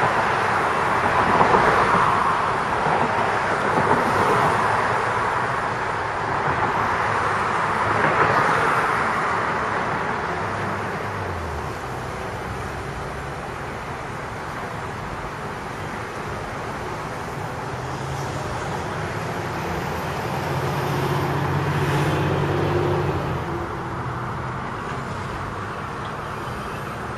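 Road traffic going by outdoors: a steady rush of passing cars that swells and fades, with a heavier vehicle's engine hum passing about three quarters of the way through.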